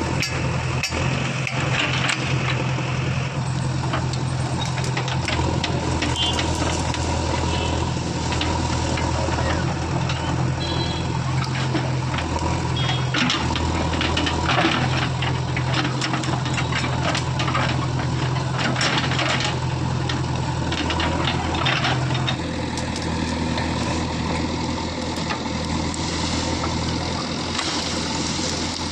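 Diesel engine of an earthmoving machine running steadily under work, with scattered clicks and clanks on top. The engine note drops slightly and gets a little quieter about three-quarters of the way through.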